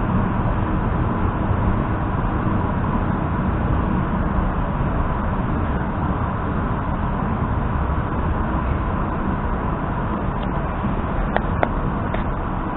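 Running noise inside an EP2D electric train car at speed: a steady rumble from the wheels and running gear with a faint constant whine, and a few short clicks near the end.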